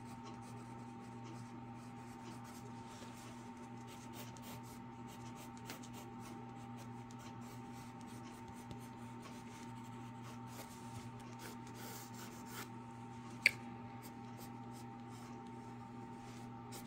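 Pencil scratching lightly on paper in short sketching strokes, over a steady low hum. A single sharp click comes about two-thirds of the way through.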